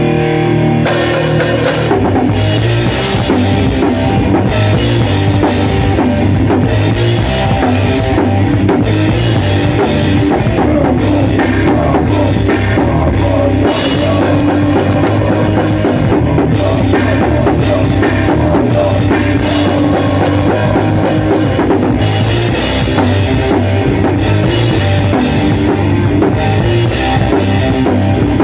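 Heavy metal/hardcore band playing loud and fast, with the drum kit's cymbals and bass drum prominent. A held chord rings for about a second before the full band and drums come in.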